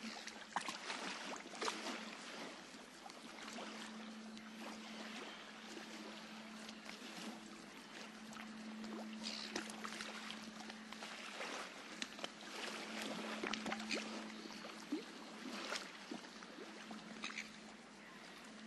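A steady hiss-like background sound with many small clicks scattered through it and a faint steady low hum.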